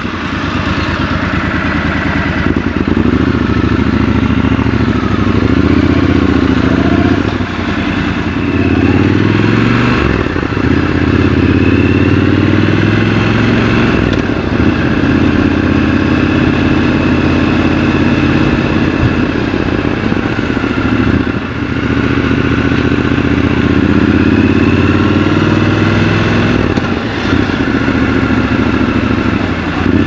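Triumph Scrambler 1200 XC's 1200 cc parallel-twin engine under way in city traffic, rising and falling in pitch with the throttle. Its pitch dips briefly several times as it shifts gear.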